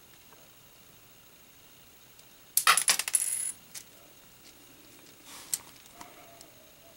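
Small round plastic LEGO shield tiles clattering onto a LEGO baseplate: a quick rattle of light clicks lasting about a second, followed by a single click.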